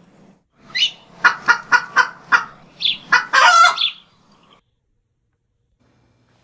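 A quick run of chicken-like clucks, about four a second, ending in a longer squawk about three seconds in; the calls stop at about four and a half seconds.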